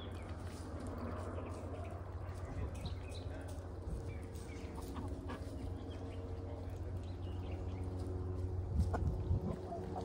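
Ducks quacking softly in a farmyard pen, with small birds chirping, over a steady low machine hum.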